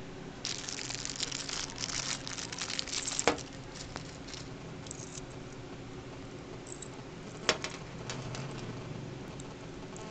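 Small clear plastic bag crinkling as it is handled and opened for about three seconds, then lighter handling of the drive's metal chain with a few ticks. Two sharp clicks stand out, about three seconds in and again about seven and a half seconds in, over a faint steady hum.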